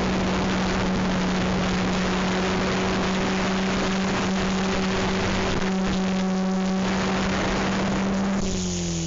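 Goosky E2 RC helicopter's electric motor and rotor running with a steady hum over a rush of air. About eight seconds in the rushing drops away and the pitch slides down as the rotor spools down.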